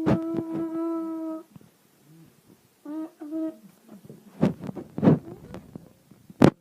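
A person humming a long, steady note, then two short hummed notes, followed by a few sharp knocks or clicks, the loudest just before the end.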